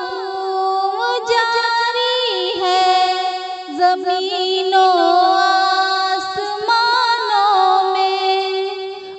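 A high voice singing a naat melody, holding long notes that slide and waver in pitch.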